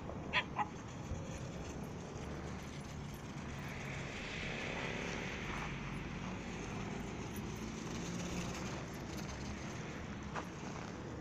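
A dog gives two quick yips in close succession about half a second in, over a steady low rumble.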